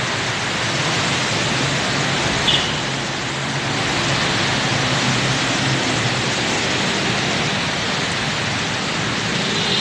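Steady rush of heavy rain together with traffic on a wet road: tyres hissing on water over the low hum of car and motorcycle engines.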